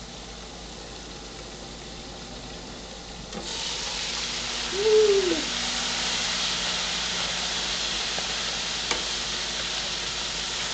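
Chicken pieces frying in an electric skillet with a ceramic-titanium pan. The sizzle is muffled at first, then grows much louder about three seconds in when the lid comes off, over a steady low hum. About five seconds in there is a short tone that rises and falls.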